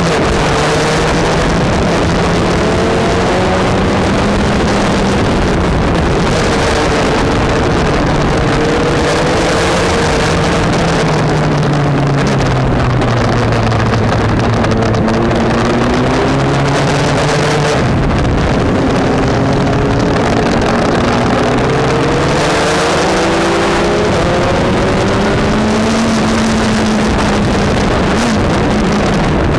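Onboard sound of a Yamaha MT-09's three-cylinder engine at track pace, its note dropping and rising again several times with throttle and gear changes, under a steady rush of wind on the microphone.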